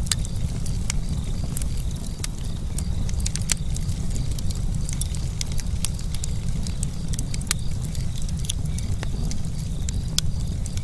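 Burning wood crackling, with irregular sharp pops over a steady low rumble.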